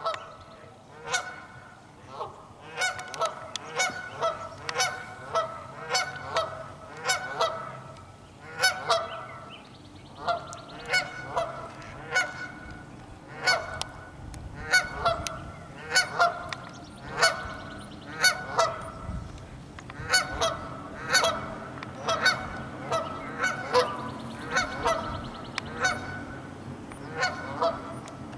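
Canada geese honking over and over, short calls coming about once or twice a second, some from more than one bird at once.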